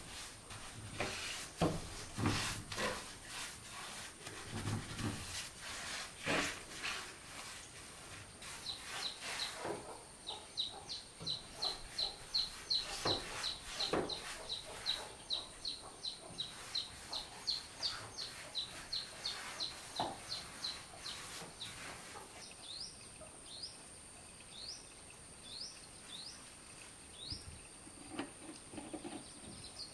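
Scrapes and taps of a paintbrush working on wooden boards, then a bird calling a fast, even run of short chirps, about three a second, followed near the end by a few short rising whistles.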